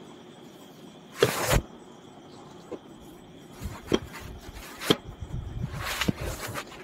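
Quiet handling of a bowl and spoon: a short rustle about a second in, a few light clicks and knocks, and another short rustle near the end.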